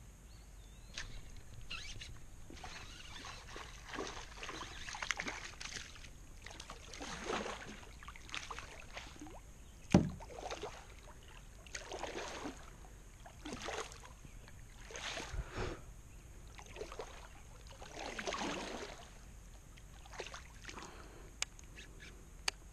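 A hooked bass splashing and thrashing at the water's surface as it is reeled in beside a plastic kayak, in repeated irregular splashes. There is one louder sharp knock about ten seconds in.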